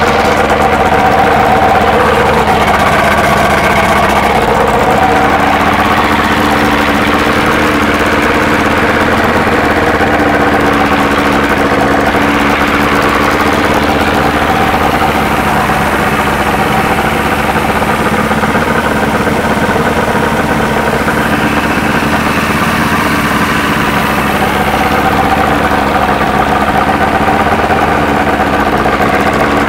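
OMC V-6 outboard running steadily with its lower unit out of the water.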